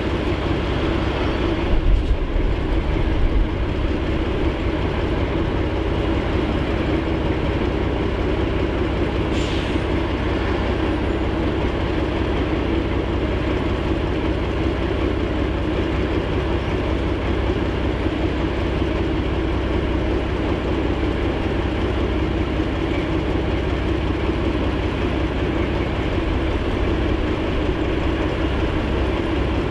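Diesel locomotive engine running steadily, a constant low drone, with a short louder low thump and rattle about two seconds in.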